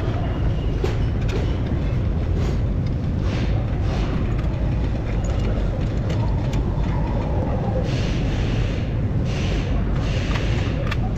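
Steady low rumble of workshop background noise, with a few light clicks and, near the end, short scraping rustles as gloved hands handle the steering knuckle and driveshaft.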